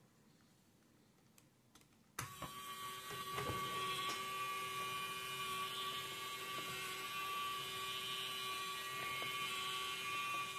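Small electric motor driving a toy's plastic gear train, switched on about two seconds in and then whirring steadily with a steady gear whine.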